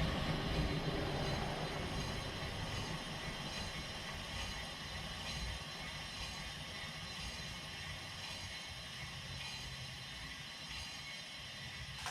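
Rear wheel of a 2018 VW GTI spinning freely and slowly coasting down: a steady mechanical whir that fades gradually. The wheel is being checked for an intermittent noise that the owner first took for a worn rear wheel bearing and now thinks may be something else, such as a sticking brake pad.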